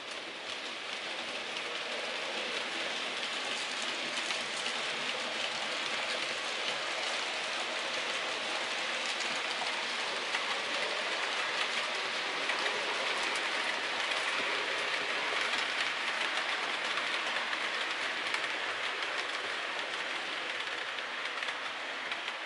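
Model railway trains running on the layout's track: a steady hissing rumble of wheels and motors on the rails with faint rail-joint clicks, swelling over the first couple of seconds.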